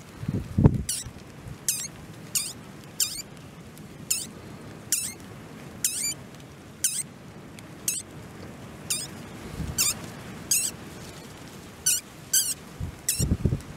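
Mink kits squeaking inside their den: a long string of thin, high squeaks, each sliding downward, one every half second to a second. Some rustling comes about a second in and again near the end.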